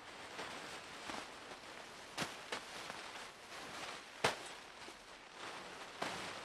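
Rustling movement against a faint hissy background, with three sharp knocks about two, four and six seconds in; the one about four seconds in is the loudest.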